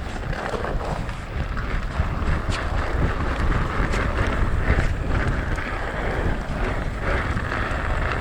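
Wind buffeting the microphone of a camera on a mountain bike moving at speed, over the rush of tyres rolling on wet, stony trail, with a few small knocks and rattles of the bike.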